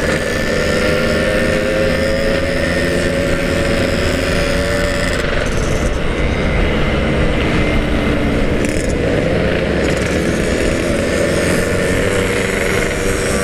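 Two-stroke motorcycle engines running at a steady cruise in a group ride, the nearest engine's pitch drifting slightly up and down, with wind rushing over the helmet-mounted microphone.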